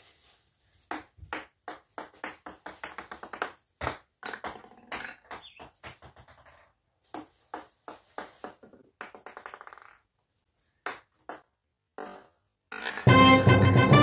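Ping pong balls bouncing on a granite countertop: several runs of quick, light clicks that come faster and fade as each ball settles. Loud music starts about a second before the end.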